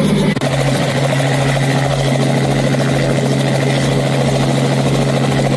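Light helicopter running on the ground with its two-blade main rotor turning: a loud, steady engine-and-rotor drone.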